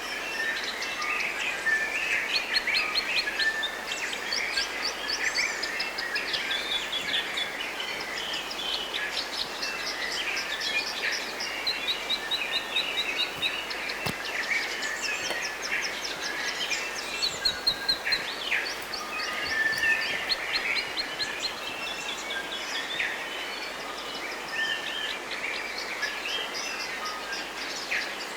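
Several birds singing and calling at once, with quick repeated trills and chirps, over a steady background hiss.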